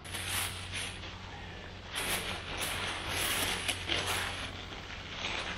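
A plastic bag rustling in a run of repeated bursts as it is handled and opened.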